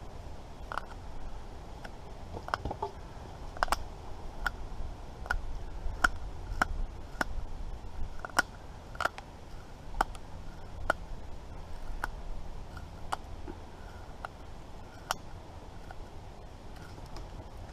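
Knife whittling a wooden spatula blank: a run of short, sharp clicks as the blade bites and shaves the wood, about one or two a second, thinning out towards the end.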